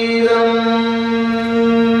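Liturgical chant music at Mass, holding one long, steady note.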